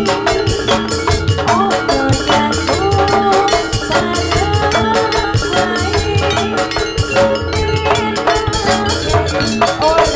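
Javanese jathilan gamelan music played loud over a sound system: drums and metallophones keeping a steady, driving beat.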